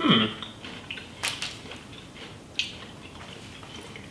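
Eating noises from a chocolate bar with wafer: a short sound sliding down in pitch at the start, then a few sharp crunches as it is bitten and chewed.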